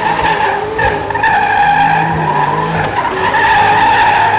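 Two 450-horsepower burnout utes spinning their tyres: a loud, steady tyre squeal over the engines running at high revs.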